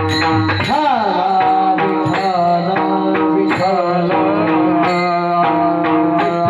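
Devotional folk song: a voice comes in about a second in with a winding, gliding melody over steady held drone notes and an even beat of hand-drum and cymbal strikes.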